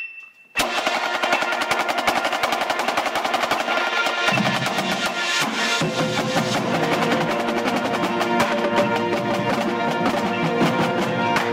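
Marching snare drumline playing a fast exercise together with sticks: dense, rapid strokes and rolls that start about half a second in. A deeper drum sound fills in from about four seconds in.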